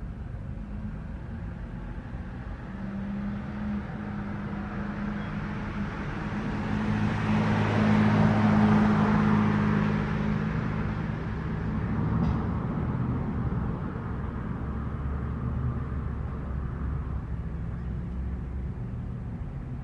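A car passing on a street at night: engine hum and tyre noise grow to their loudest about eight or nine seconds in, then fade away, leaving a low engine hum.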